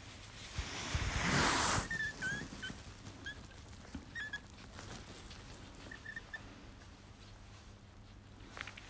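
An otter giving a string of short, high chirps and squeaks as it nuzzles and mouths a hand. A loud rustling comes about a second in, just before the chirps start.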